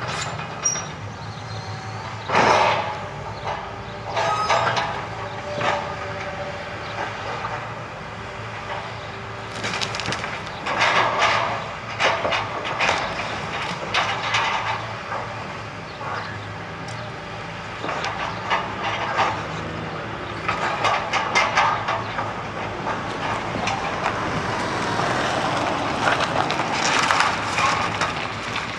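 Hitachi tracked excavator's diesel engine running steadily while its bucket breaks up and drops timber and rubble from a demolished house, giving repeated cracking of wood and clattering crashes. The loudest crash comes about two and a half seconds in, with further bursts of clatter through the middle and near the end.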